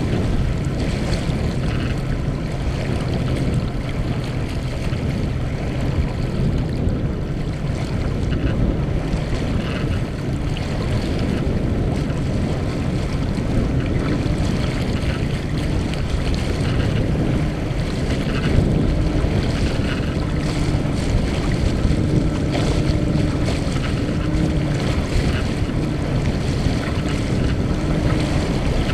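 Water rushing and splashing along the hull of a Mumm 36 racing sailboat heeled under sail, with wind buffeting the microphone.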